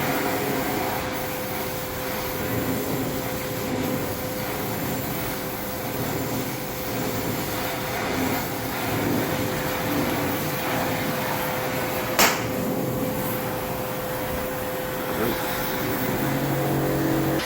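Steady rushing noise of a gas-welding torch flame, with a constant hum under it and one sharp metallic knock about twelve seconds in.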